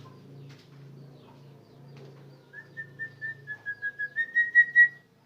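A rapid series of short whistled notes on one pitch, about four to five a second, growing louder and quicker over two and a half seconds before stopping abruptly.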